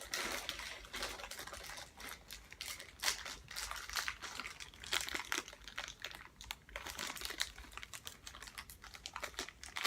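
Hands working at plastic toy packaging that will not open, with irregular crinkling and clicking from the plastic.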